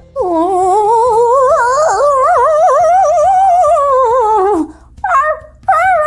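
A person's voice imitating a dog howling: one long wavering howl that rises and then falls away, then two shorter howls near the end.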